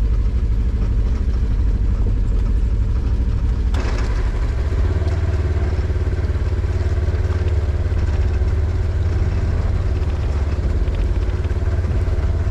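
Side-by-side utility vehicle's engine running as it drives slowly, heard from inside the cab with a steady low rumble. About four seconds in the sound changes abruptly, adding a steady higher tone.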